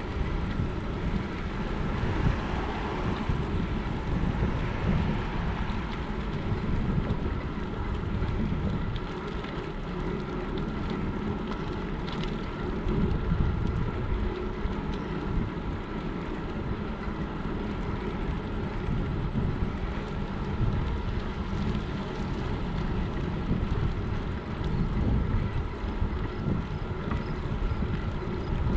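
Wind buffeting the microphone of a GoPro Hero7 Black on a moving bicycle: a constant, gusting low rumble, with the faint steady hum of the bike rolling on asphalt beneath it.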